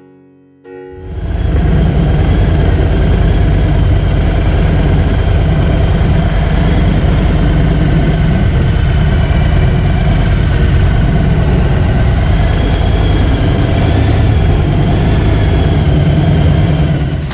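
Harley-Davidson V-twin motorcycle engine running loud and steady at low speed, starting about a second in, as the bike rolls slowly along.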